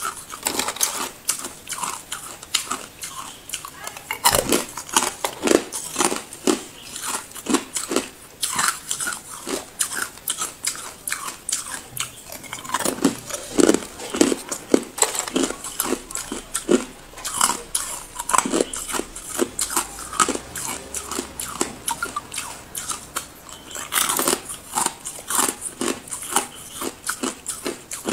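Ice cubes being bitten and chewed close to the microphone: a rapid, dense run of crunches throughout, with louder clusters of bites every few seconds.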